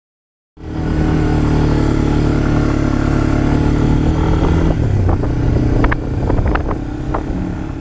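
ATV (quad) engine running steadily under throttle, cutting in suddenly about half a second in. About two thirds of the way through the engine note drops as the throttle eases, and a few sharp clacks and rattles follow.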